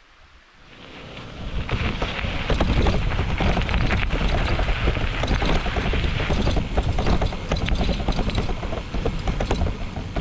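Bicycle riding on a gravel forest road: wind buffeting the microphone, with dense crackling and rattling from the tyres and bike. It fades in over the first two seconds.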